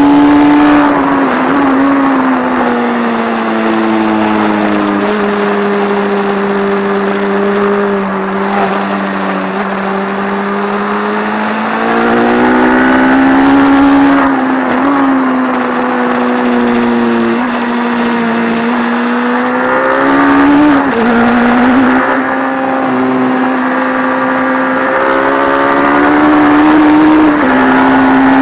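Onboard sound of a 1170 cc P&M Kawasaki inline-four race motorcycle held at high revs on a circuit. The engine note sags slowly, climbs again, dips briefly about two-thirds through and rises near the end, over wind rushing past the fairing.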